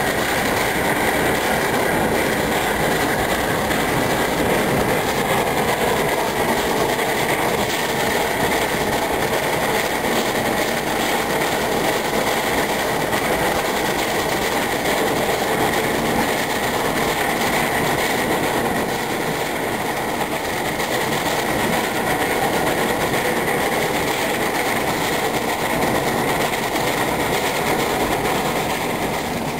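Narrow-gauge steam train running, heard from aboard behind the locomotive: a steady, loud din of the engine working and the wheels clattering on the rails.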